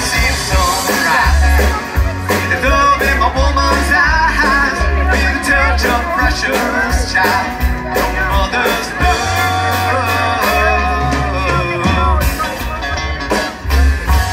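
Live rock band playing an instrumental stretch of a country-rock song: drums and bass guitar steady under a wavering melodic lead, with no sung words.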